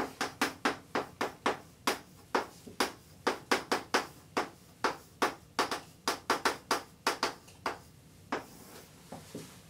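Chalk writing on a blackboard: a quick, irregular run of sharp taps and short scrapes as letters are written, about three or four a second, stopping shortly before the end.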